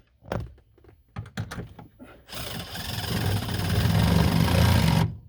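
A few short knocks, then an electric power tool runs for about three seconds, building and cutting off suddenly near the end, as the steel gas-pedal bracket is modified.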